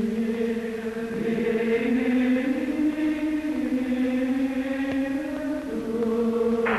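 Background music: slow, wordless choral chords, each note held for a long time and moving slowly to the next.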